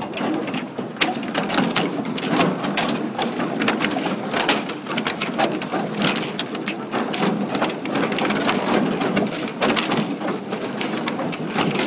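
Thin ice crackling and crunching as a paddle boat's plastic pontoons push through it and break it into shards. Many sharp cracks and clicks come close together over a steady hiss.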